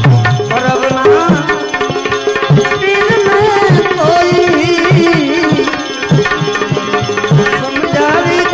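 Gujarati devotional bhajan music: hand-drum strokes under a melody that glides and wavers in pitch.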